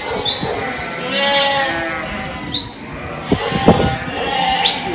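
Sheep bleating, one long call about a second in, from a bunched mob of young sheep. A few short high chirps and a couple of sharp knocks come later.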